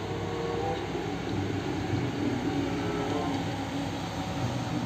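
Steady engine and road noise of highway traffic, with a concrete mixer truck in the lane beside, and a few faint steady hums under an even rumble.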